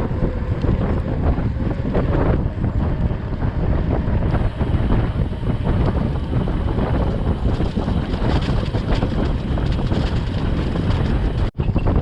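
Wind buffeting the microphone of a camera riding along on a mountain bike, a steady low rumble with faint rattling over it. The sound cuts out for an instant near the end.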